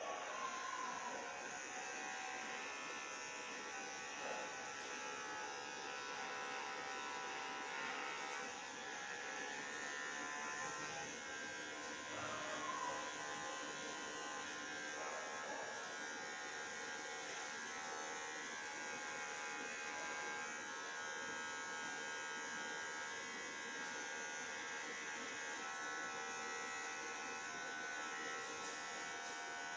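Handheld electric hair clipper buzzing steadily as it shaves the hair at the nape of the neck.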